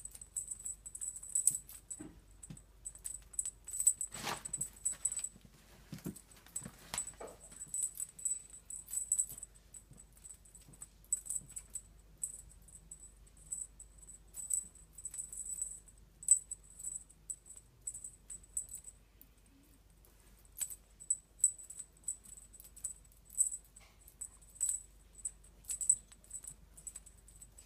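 Small bell on a feather teaser toy jingling in many short, irregular shakes as the toy is waved about. A couple of soft knocks come a few seconds in.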